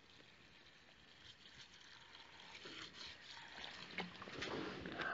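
Water poured from a plastic bottle into a plastic tub of fishing pellets, a faint trickle that grows louder toward the end, soaking the pellets.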